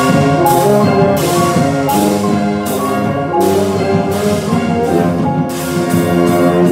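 Concert band of brass and winds playing a loud full-ensemble passage, with repeated percussion accents. The whole band cuts off together near the end, leaving a brief ring in the room.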